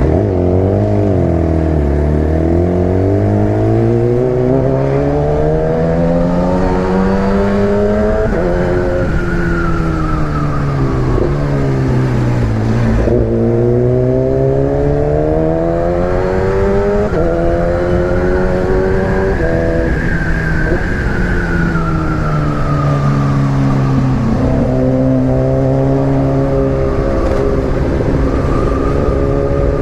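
Motorcycle engine pulling through the gears: the revs climb and drop sharply at each upshift. It eases off about halfway through, then accelerates through the gears again and settles to a steady cruise near the end, over a constant rush of wind noise.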